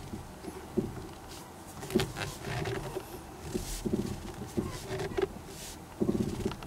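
Abnormal noise from a car's steering: irregular short creaking groans mixed with sharp clicks, recurring about every half second to second.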